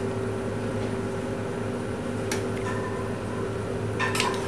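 Steady hum like a mechanical fan, with a faint clink of a metal spoon against a stainless steel saucepan about halfway through and a short spoon-on-pan scrape near the end.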